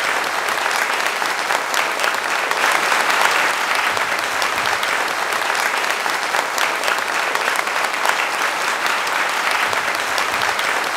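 Large audience applauding: many hands clapping together in a dense, steady patter.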